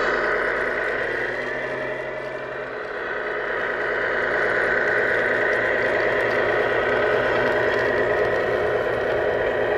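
Tamiya Grand Hauler RC tractor truck driving over gravel with a loaded trailer: a steady electric motor and gearbox whine over the rattle and crunch of tyres on loose stones, briefly quieter about two and a half seconds in.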